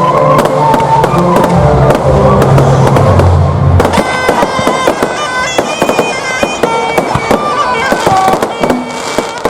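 Show music with a reedy wind melody over low drones and a steady crackle of fireworks; about four seconds in, the low drones stop and a higher, brighter melody takes over while the crackling goes on.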